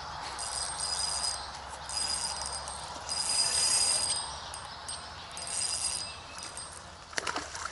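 Light spinning reel whirring in about five short bursts with a high metallic whine as line is reeled in on a hooked shad, followed by a few sharp clicks near the end.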